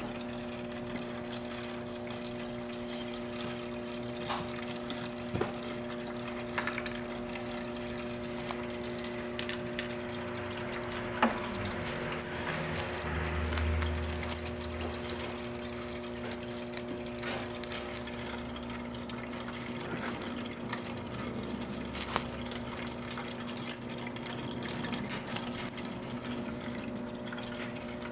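Drinkwell Platinum pet water fountain running: its pump hums steadily and the water trickles. From about ten seconds in, irregular light clicks and rustles join it.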